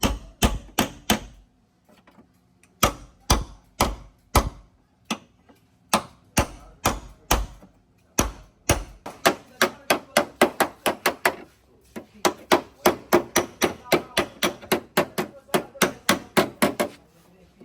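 Hammer blows on car body sheet metal during dent repair: short bursts of sharp strikes with pauses, then a steady run of about three to four blows a second from about eight seconds in.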